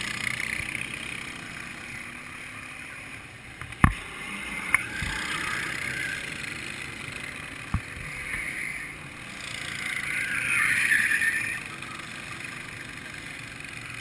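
Go-kart engines buzzing as karts lap the circuit, swelling and fading as they pass, loudest about ten to eleven seconds in. A few sharp knocks come at about four and eight seconds.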